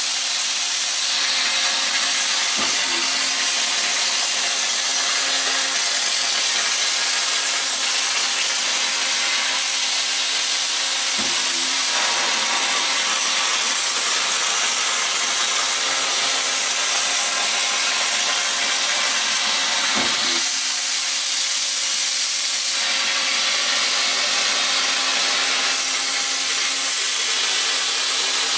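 Xilix Spectrum waterjet cake cutter's high-pressure water jet hissing steadily as it cuts through a layered sheet cake, over a steady low hum. A brief knock sounds about every nine seconds, four times in all.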